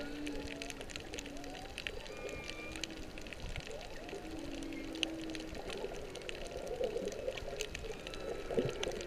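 Humpback whale song heard underwater: low held moans and short rising and falling calls, with fainter higher tones, over a constant crackle of clicks.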